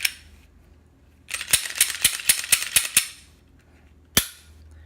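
Reassembled Glock 43X 9 mm pistol worked by hand: a quick run of about ten sharp metallic clicks and rattles, then one single sharp click near the end.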